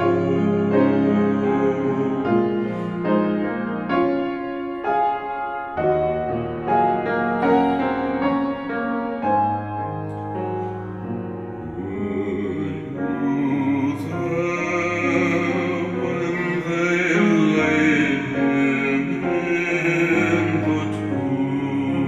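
Slow music: piano with a sustained melody over it, growing fuller with wavering held notes about twelve seconds in.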